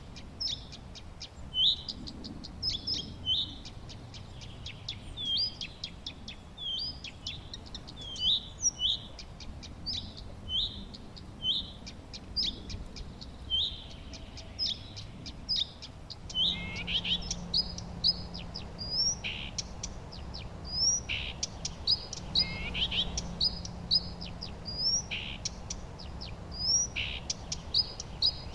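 Songbirds chirping, short repeated high notes about one or two a second. From about halfway, the background noise thickens and a faint low hum comes and goes.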